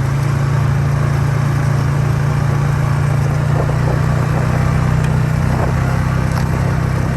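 A motor engine running steadily at an even pitch, with faint rattles now and then.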